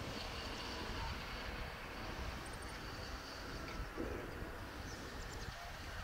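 Outdoor background: a steady low rumble with an even hiss, and a few faint, short, high chirps about two and a half seconds in and again near five seconds.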